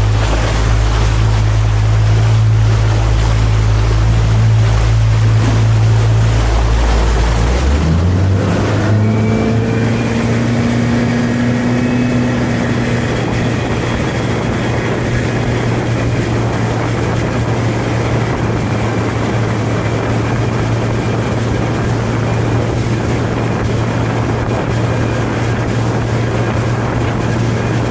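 Mercury 115 Pro XS outboard motor running at speed, with rushing water from the hull and wake and wind on the microphone. About eight seconds in the engine note shifts, with a brief rising pitch, then holds steady.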